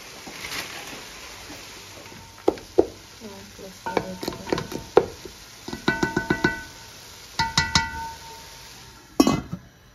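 A wooden spatula stirring minced chicken, peas and carrot frying in a stainless steel pot: a faint sizzle at first, then bursts of quick knocks and scrapes against the pot, several a second, each leaving the metal ringing briefly.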